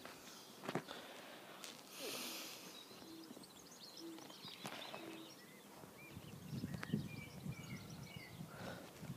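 Quiet rural ambience with faint birdsong, many small chirps throughout. There is a short hiss about two seconds in, and a low rumble builds near the end.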